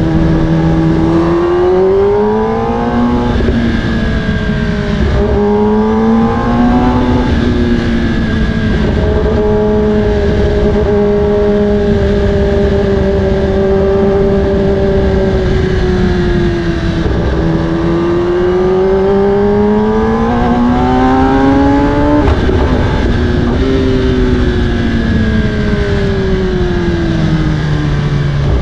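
Kawasaki ZX-10R's inline-four engine through an Akrapovic carbon exhaust, under way. The revs climb and fall several times, holding fairly steady for several seconds in the middle before rising again.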